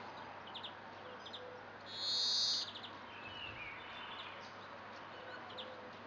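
Small songbirds calling: short, high chirps and twitters scattered through, over a steady background hiss. About two seconds in, a louder harsh buzz lasts under a second.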